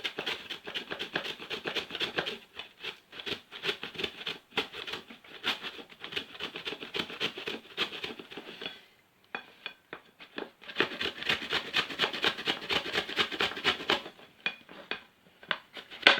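A turnip being grated on a hand grater: rapid, continuous scraping strokes, with a brief pause about nine seconds in before the grating resumes.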